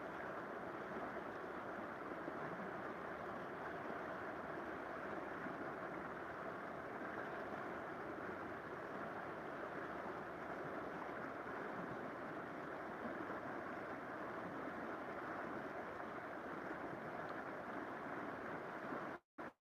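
Steady rush of flowing river water, an even noise with no distinct events; it cuts out in a few brief gaps at the very end.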